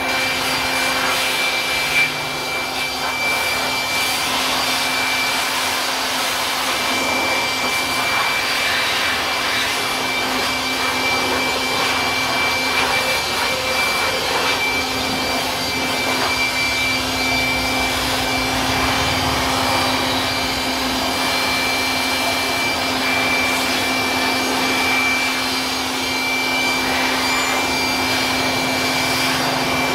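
Handheld electric air blower running steadily, a rush of air with a steady hum and high whine, blowing water off a washed mountain bike. A single short knock about two seconds in.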